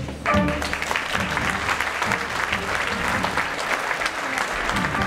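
Audience applauding steadily in a theatre hall after a song.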